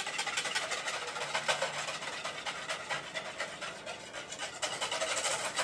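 Hand whisk beating liquid cake ingredients of egg, mayonnaise and water in a mixing bowl: a fast, continuous run of scraping and clicking strokes against the bowl.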